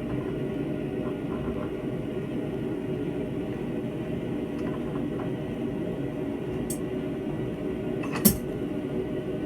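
Steady rushing hum of a forge heating a railroad spike, with one sharp metallic clink about eight seconds in and a few faint ticks before it.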